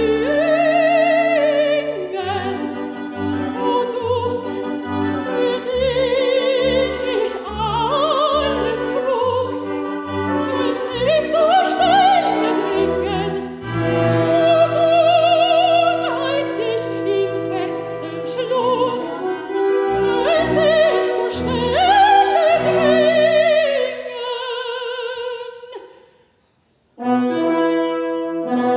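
A female classical singer sings with wide vibrato, accompanied by a chamber ensemble of bowed strings and French horn. About 25 seconds in the music dies away into a brief silence, then the ensemble starts again with the French horn prominent.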